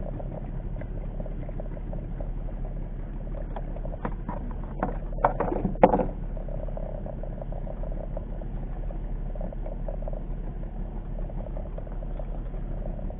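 Steady low rumble of a small wooden fishing boat at sea, with a short cluster of sharp knocks and clicks from handling of the rod, reel and hull about four to six seconds in, the loudest near six seconds.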